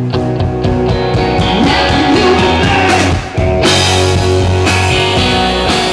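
Live rock band playing: electric guitar, bass and drums, with a short break a little past halfway before the full band comes back in.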